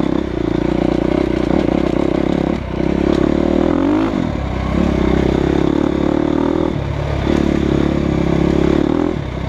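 2015 Husqvarna FE350's single-cylinder four-stroke engine running under load on a dirt trail, with the throttle briefly chopped several times and a rev rising just before one of the dips, about four seconds in.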